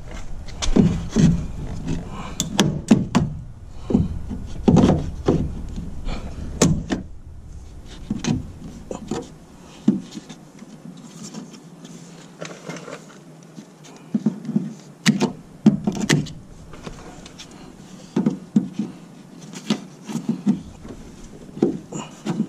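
Hand tin snips cutting away the plastic mount of a factory Toyota Prius door speaker: a string of sharp, irregular cracks and clicks as the plastic is snipped, close together for the first seven seconds or so, then sparser.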